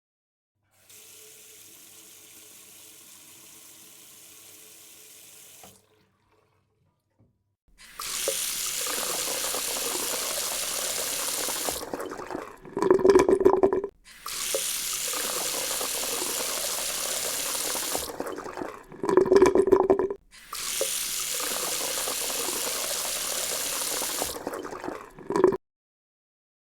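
Water running from a tap into a sink: three long steady stretches of running water, broken twice by short, louder splashing.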